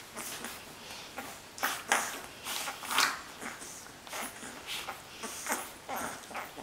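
Newborn Dogue de Bordeaux puppies suckling at their mother's teats: short, irregular sucking noises, roughly two a second.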